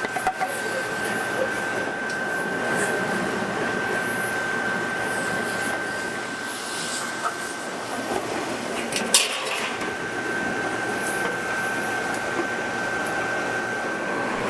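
Glass factory machinery running steadily, a constant noise with a thin high whine, which drops out for a while in the middle. A few light clicks, with one sharp clink about nine seconds in.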